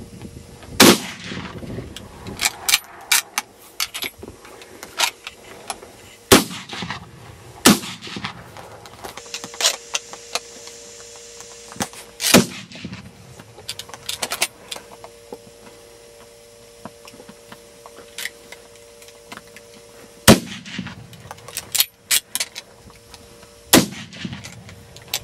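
Rifle fire on a range: several bolt-action service rifles fired one shot at a time at irregular intervals. There are about six loud cracks, each with a short echo, and fainter shots and clicks in between.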